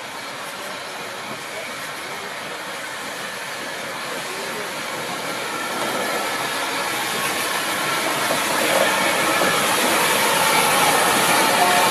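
Bagnall 0-6-0 saddle-tank steam locomotive hauling its coaches slowly into the station: the train's running noise and steam hiss grow steadily louder as it draws alongside and passes close by. A thin squeal comes in near the end.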